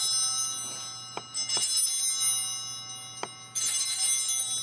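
Altar (sanctus) bells rung in peals of bright, high ringing, marking the elevation of the consecrated bread after the words of institution. One peal rings on at the start, and fresh peals start about a second and a half in and again about three and a half seconds in.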